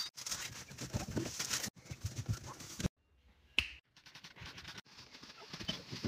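Groceries being put into a refrigerator: a quick run of light clicks and knocks from cans and containers being set down, with plastic rustling. The sound stops dead several times where the short clips are cut together.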